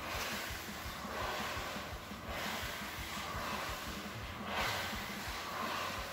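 A flat-bladed hand tool scraped through a wet brown coating spread on bare hardwood floorboards, in repeated hissing strokes about two seconds apart.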